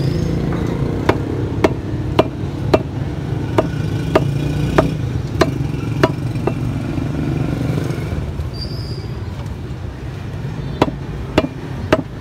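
Butcher's cleaver chopping beef on a wooden chopping block, sharp strokes about twice a second, pausing for a few seconds and resuming near the end. A steady low rumble of road traffic runs underneath.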